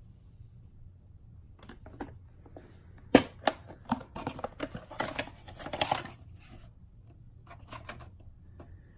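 Plastic clamshell VHS case being opened and the cassette handled: a sharp snap of the case a little past three seconds in, then a run of plastic clicks and rattles as the tape is lifted out, and a few more clicks near the end.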